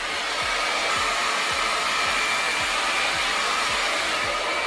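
Hot-air brush (round-bristle brush dryer) blowing steadily, a rush of air with a faint high whine riding on it.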